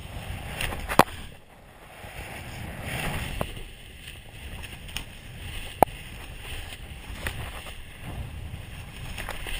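Wind rushing over the helmet-camera microphone during a descent under a reserve parachute, rising and falling, with a sharp knock about a second in and another just before six seconds in.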